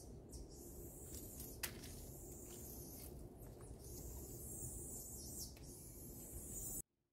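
Faint outdoor background: a steady low rumble under a high hiss, with one sharp click about a second and a half in. The sound cuts off abruptly near the end.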